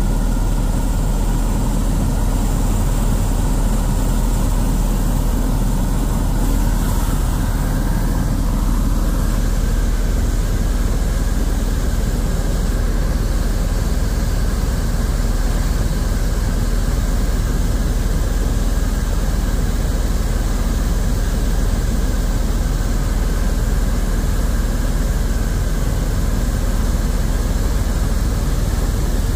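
Helicopter in flight: the steady, deep drone of its engine and rotor.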